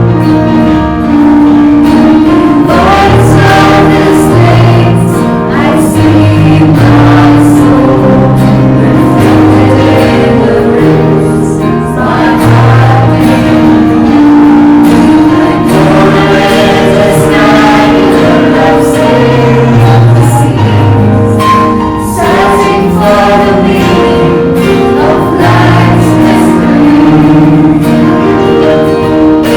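Music: a choir singing over held chords, with a bass line that steps from note to note.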